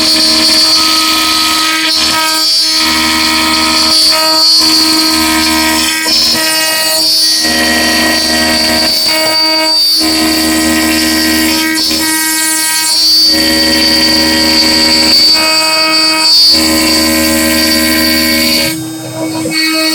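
Homemade CNC router cutting solid wood with a 5 mm wood end mill: the spindle runs with a steady whine while the stepper motors sing in pitches that change every second or two as the axes move. It dips briefly near the end.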